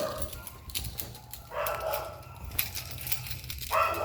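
Kitten meowing, two drawn-out meows about a second long, with scattered light clicks in between.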